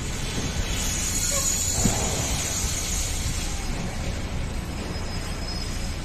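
Dump truck's diesel engine running steadily with the bed raised, a low rumble throughout, and a high whine from about one to three seconds in.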